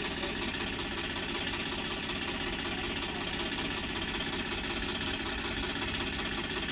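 Swaraj tractor's diesel engine idling steadily.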